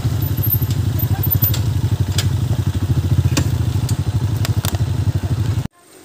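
Motorcycle engine running under way with a rapid, even pulse, with sharp knocks and rattles scattered through. It cuts off abruptly near the end.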